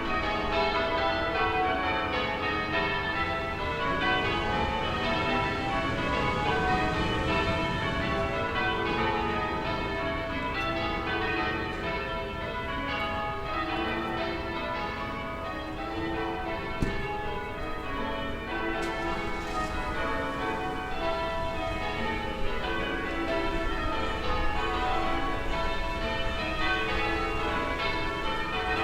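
Church bells ringing, heard from a distance, in a rapid, unbroken run of overlapping strikes over a low town rumble. There is a brief sharp knock about seventeen seconds in and another a few seconds later.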